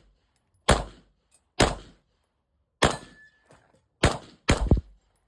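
Six gunshots fired at an uneven pace, the last two close together, with a brief ringing tone after the third.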